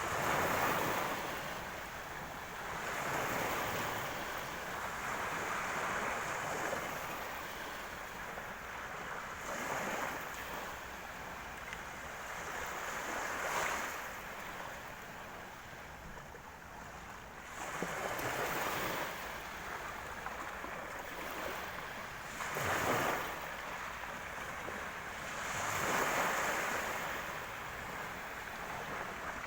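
Black Sea surf breaking on the shore, with waves surging and washing back every few seconds.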